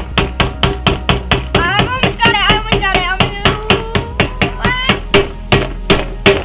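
Hammer driving a nail into a small wooden kit piece in a quick, steady run of strikes, about four to five a second.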